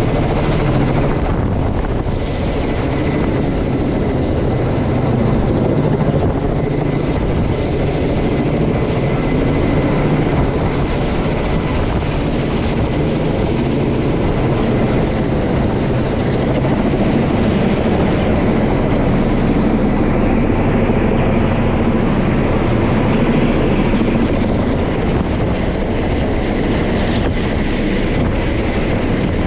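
Kamov Ka-32 coaxial-rotor helicopter flying overhead with a sling line hanging beneath it: steady, loud rotor and turbine engine noise with a fast, even beat from the blades.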